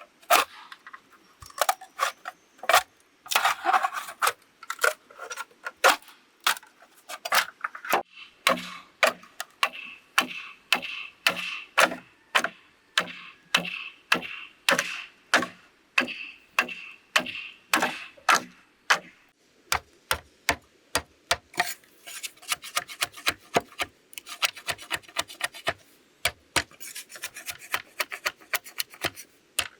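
Hand tools working bamboo: sharp strikes about twice a second, some with a ringing note. About two-thirds of the way through they give way to quicker rasping strokes, like a saw cutting through bamboo.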